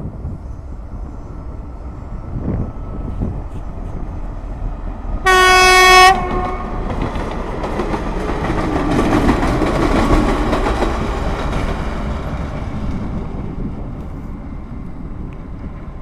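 TEP70 passenger diesel locomotive passing. It gives a short horn blast of under a second on one pitch, then the train's running noise builds to a peak and fades away.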